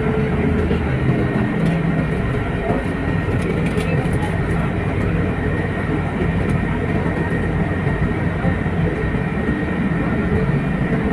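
Steady drone of a moving vehicle heard from inside, a constant low hum with a thin high tone over it, and faint voices in the background.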